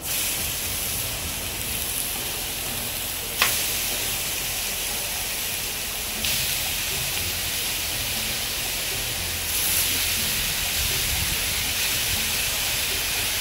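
Turkey bacon strips sizzling as they are laid one by one onto a hot Blackstone 22-inch steel flat-top griddle, the sizzle stepping up louder about six seconds in and again near ten seconds as more strips go down. A single sharp pop about three and a half seconds in.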